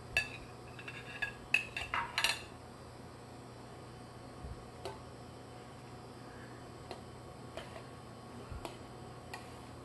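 Metal tongs clinking against a stainless steel mixing bowl and a plate while chicken is added to pasta: a quick run of ringing clinks in the first two and a half seconds, then a few light, scattered taps as the pasta is tossed.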